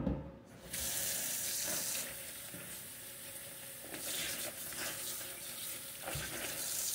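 Kitchen tap turned on just under a second in and running into the sink, its splash changing now and then as a piece is rinsed under the stream. A short knock right at the start.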